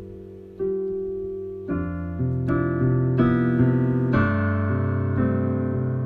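Solo piano playing slow chords, each struck and left to ring and fade; a few quiet notes at first, then fuller and louder chords from about two seconds in.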